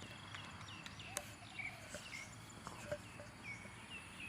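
Birds chirping outdoors at dawn, a string of short, repeated down-slurred calls, with two sharp clicks partway through.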